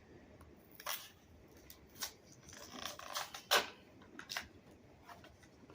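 Plastic blister packaging of a Hot Wheels car being worked open by hand: a run of sharp clicks, snaps and crinkles, the loudest snap about three and a half seconds in.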